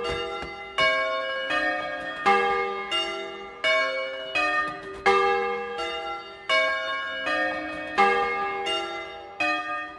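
A ring of bronze church bells tuned to a major sixth (A-flat to F), cast by Francesco De Poli, rung in a Bolognese-style 'doppio'. The swinging bells strike one after another, about one stroke every three-quarters of a second. Each stroke is a clear note of a different pitch that rings on and overlaps the next.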